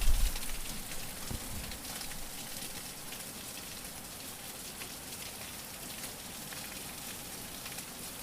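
Steady rain falling, an even patter with fine crackles, opening with a low rumble in the first second.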